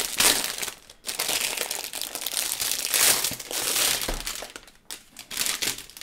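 Thick clear plastic film crinkling as it is peeled and pulled off a rolled canvas. The crinkling comes in irregular rustling bursts, dips briefly about a second in, and thins out near the end.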